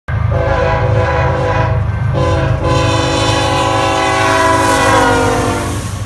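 Norfolk Southern freight locomotive's multi-chime air horn blowing loud, long blasts over the train's low rumble, broken by short gaps about two seconds in. Its pitch sags slightly near the end.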